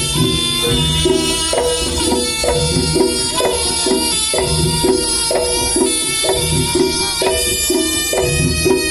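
Javanese traditional music of the kind played for barongan and jaranan: drums keeping a steady beat under a melody of held, reedy notes.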